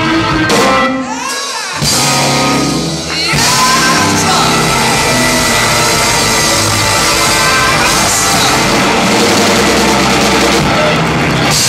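Live electric blues band: electric guitar, bass guitar and drums with singing. From about three seconds in, the band holds a loud, dense closing flourish that breaks off near the end.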